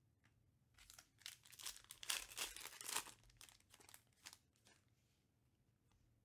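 Foil wrapper of a Panini Prizm UFC trading-card pack being torn open and crinkled. The crackling rustles start about a second in, are loudest around two to three seconds, and die away by about five seconds.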